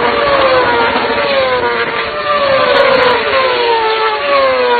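Racing motorcycles passing one after another at full speed, each engine note falling in pitch as it goes by, about five in a row.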